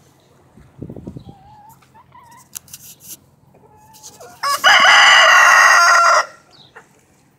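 Rooster crowing once, a loud call of a little under two seconds starting about four and a half seconds in, with soft hen clucks before it.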